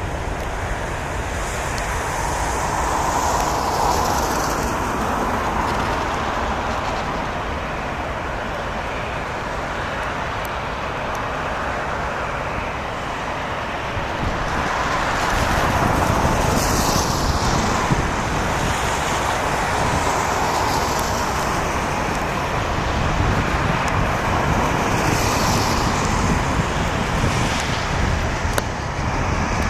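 A steady, loud outdoor roar of vehicle noise with no clear tones. Three times a hissing swoosh swells and fades, like vehicles passing close by.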